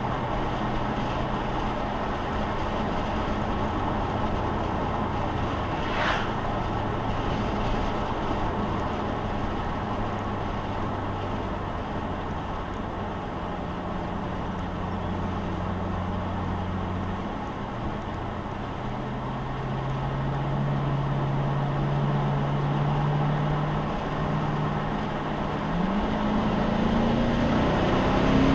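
Car's V8 engine droning at a steady cruise under tyre and road noise. About two-thirds through, the engine note drops, then climbs slowly; near the end it rises quickly as the car accelerates.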